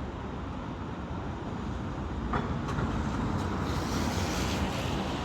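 City street traffic noise, a steady rumble of passing vehicles that swells a little about halfway through.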